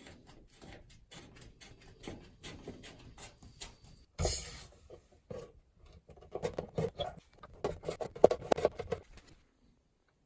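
Hands and a tool working the water supply hose back onto a washing machine's fill valve: scattered small clicks and rubbing, a louder knock about four seconds in, and a quick run of clicks and scrapes in the second half as the fitting is tightened.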